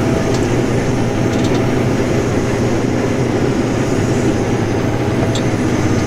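Case IH Axial-Flow 7088 combine harvester running flat out at full working revs while cutting wheat, heard from inside the cab: a steady, dense drone with a constant low hum.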